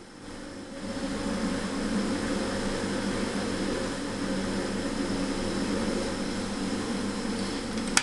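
Steady whooshing background noise, like a fan or air conditioning, that swells up about a second in and holds. Near the end a single sharp click as a hand presses a button on the base of a robotics-kit model.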